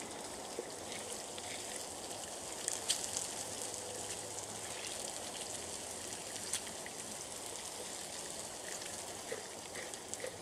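Bacon, sausages, vegetable hash and fresh pancake batter sizzling on a Blackstone flat-top griddle: a steady hiss with scattered crackling pops.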